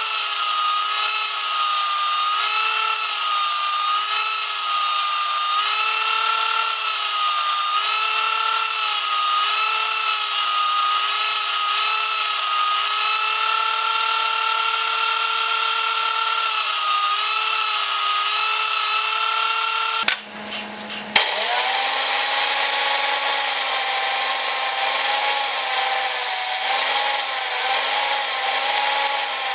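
Bench-mounted angle grinder running with a steady whine that sags in pitch about once a second as a steel awl blank is pressed to the disc, then holds steady for a few seconds with no load. About two-thirds in the sound breaks off for about a second, then the grinder runs again at a lower pitch, its whine dipping as work is pressed to it.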